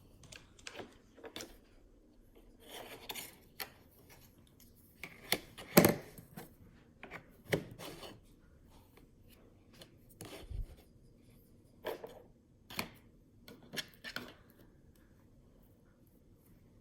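Blue icee slime being squeezed and pressed by hand, making a string of short, separate sounds with brief pauses between them. The loudest comes about six seconds in.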